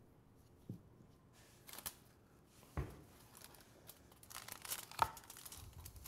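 Aluminium foil and parchment paper crinkling and rustling in short bursts as they are handled over a dish, with a few light knocks, the busiest stretch of crinkling coming just past the middle.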